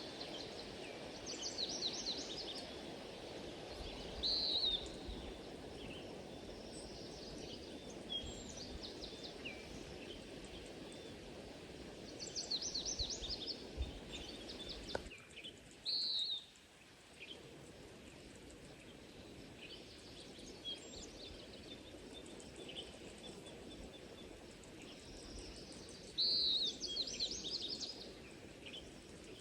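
A songbird sings at intervals over a steady low background rush. Each phrase is a short, clear high note, often followed by a quick rapid trill; the phrases come about every few seconds. The background rush cuts out suddenly about halfway through and comes back a couple of seconds later.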